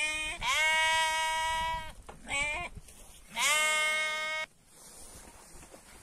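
Sheep bleating in a flock: two pairs of bleats, each a short bleat followed by a long, steady one held for over a second.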